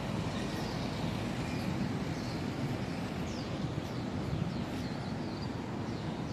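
A bird calling over and over with short, high, falling chirps, over a steady outdoor rumble.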